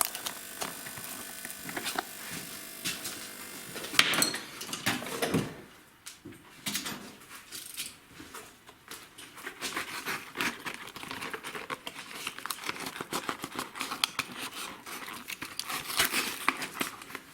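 Tensioner roller spun by hand, its bearing giving a steady hum for about the first four seconds, which the mechanic takes for a worn roller that grease will not cure; a knock follows, then a long stretch of crinkling and tearing of paper packaging.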